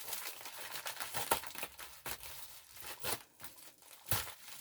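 Scissors cutting open a cardboard box, with irregular snips, crinkling and tearing, and one sharper snap about four seconds in.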